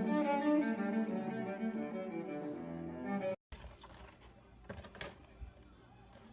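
Background music led by a bowed string instrument like a cello, playing held notes, cut off abruptly a little over three seconds in. After the cut comes quiet room sound with a few faint knocks.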